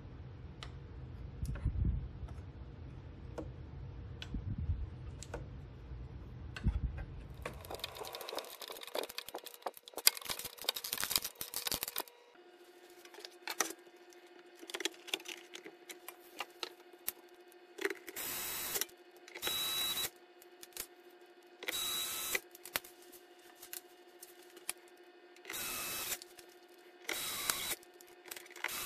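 Handling and clattering of a reef light's metal housing and LED panel, then a cordless screwdriver running in about six short bursts of under a second each as screws are run in or out of the fixture.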